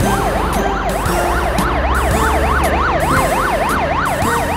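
Police car siren sound effect in a fast electronic yelp, its pitch sweeping up and down about four times a second.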